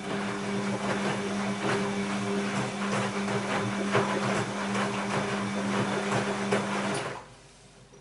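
Bosch WAB28220 washing machine drum turning wet laundry during a 30-degree delicates wash: a steady motor hum under irregular sloshing and slapping of water and cloth. It stops about seven seconds in as the drum comes to rest.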